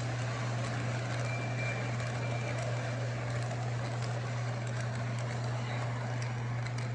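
Lionel model train running on the track: a steady low hum under a rolling rumble, with scattered light clicks and a brief high tone about a second in.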